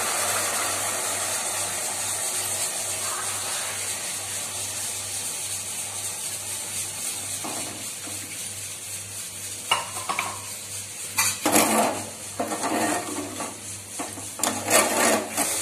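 Water being poured onto sugar in a stainless steel kadai: a hissing wash of water that fades away over the first few seconds. Then scattered clinks and knocks of utensils against the pan, and more water poured in near the end.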